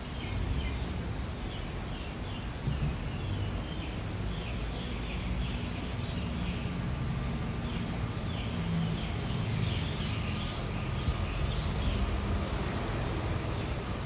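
Steady hiss of heavy rain, with a low rumble beneath, and birds chirping faintly through the middle of it.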